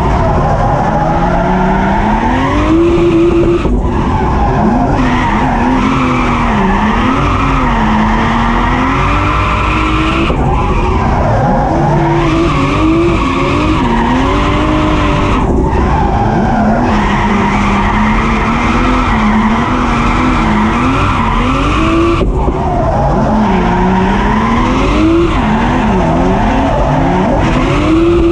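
Turbocharged Toyota 2JZ straight-six in a Nissan 200SX S14 drift car, heard from inside the cabin, revving hard with its pitch rising and falling again and again as it drifts, held steady at high revs at the start and end and dipping briefly four times. Tyres skid and squeal under the engine.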